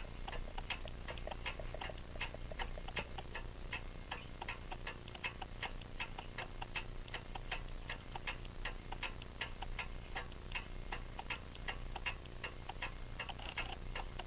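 French crystal regulator clock ticking steadily, about four even ticks a second: the pallets of its open escapement, with their jewel-like stones, catching the teeth of the brass escape wheel. The clock is running.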